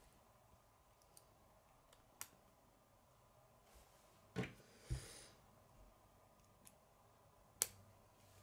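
Plastic K'nex rods and connectors being handled and snapped together: a few faint, scattered clicks with near silence between, the sharpest one near the end.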